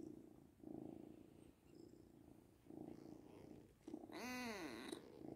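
Kitten purring faintly in even waves, each about a second long. About four seconds in, a short, louder call rises and falls in pitch over the purring.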